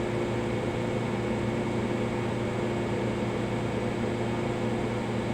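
Ice cube machine's refrigeration compressor running with a steady hum, just started and now working after its contactor was given supply again.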